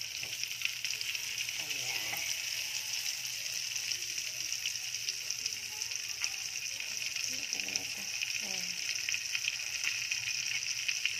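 Coated chicken frying in hot oil in a steel wok: a steady sizzle with fine crackling pops throughout.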